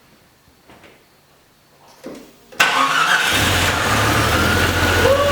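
Jeep Cherokee XJ's 4.0 straight-six starting: a couple of faint clicks, then it catches suddenly about two and a half seconds in, without throttle, and settles into a steady idle. The catch is the sign that the newly fitted distributor and camshaft position sensor have given it spark again.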